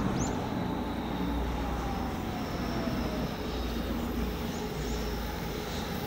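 EH500 electric locomotive approaching with a freight train: a steady rumble of the locomotive and wagons on the rails, with a faint whine falling in pitch over the first three seconds.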